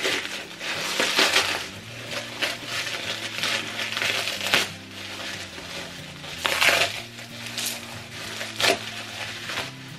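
Plastic bubble wrap crinkling and rustling as it is pulled off a wrapped mug, in irregular crackling bursts, loudest about a second in, about four seconds in and just before seven seconds.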